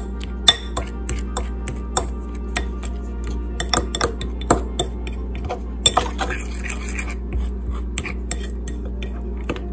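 Metal fork whisking cornstarch into berry juice in a ceramic bowl, clinking and scraping against the bowl in quick, irregular strokes. It is mixing a cornstarch slurry as a thickener.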